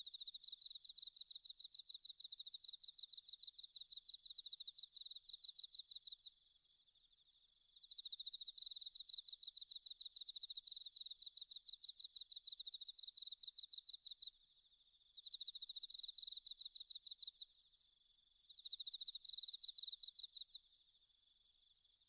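Rapid, high-pitched pulsed chirping trills of insects, coming in bouts of a few seconds that stop and restart about four times, with fainter chirping in between.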